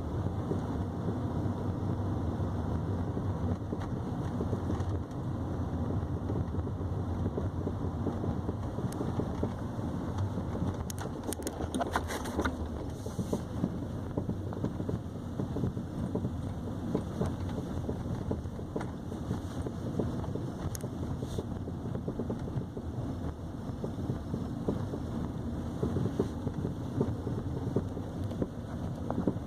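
2015 Nissan Sentra (B17) on the move: steady road noise with irregular clunks and metallic knocks from the front right suspension, which the owner reports as a persistent fault.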